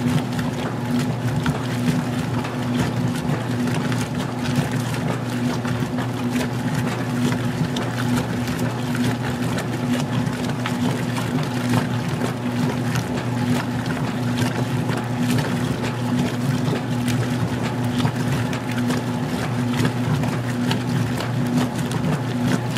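Magic Chef 20-pound washer agitating during its wash stage: a steady motor hum with water sloshing and churning in the tub, on an extra small load at the lowest water level.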